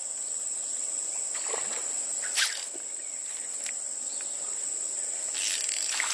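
Insects calling in one steady high-pitched tone, with a short sharp noise about two and a half seconds in and a longer, louder noise near the end.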